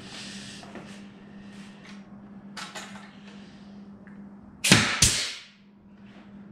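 Pneumatic nail gun firing twice into a wooden frame, two sharp shots about a third of a second apart, the second followed by a brief hiss.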